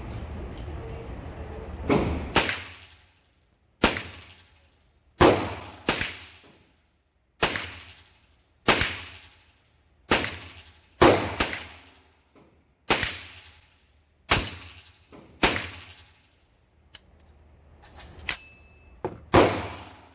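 A 10.5-inch-barrel AR-15 in .223 fires a string of about fifteen loud single shots at an uneven pace, mostly about a second apart with a couple of quick doubles. Each crack has a short echoing tail.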